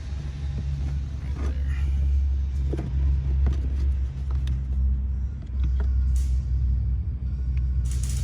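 Steady low rumble and hum from a running engine or machine, with several light clicks and taps of hands working an electrical connector loose.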